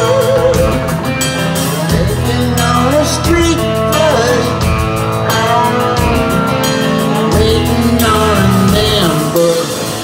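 Live rock band playing loud: electric guitars, bass guitar and drums, with a lead line that bends in pitch above them. The hall echo is heard from the crowd's position.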